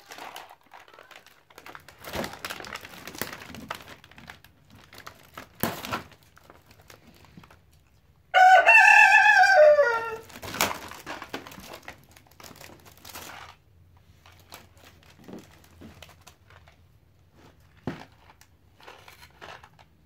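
A monkey rummaging through a gift box, crinkling paper and plastic treat wrappers in short bursts. About eight seconds in comes one loud crowing call like a rooster's, lasting about two seconds and dropping in pitch at its end.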